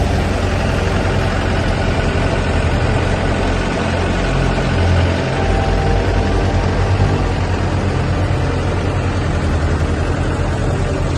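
Engine of a passenger boat running steadily as it crosses the lake, a constant low drone with a hiss of noise over it.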